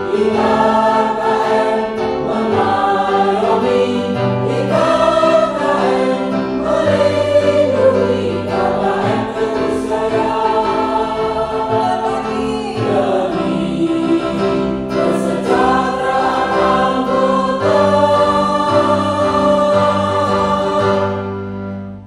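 Women's choir singing a song with sustained notes. The singing fades and stops near the end, as the song ends.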